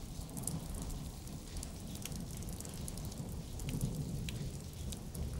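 Steady rain falling, with scattered drops ticking over a low, even rumble.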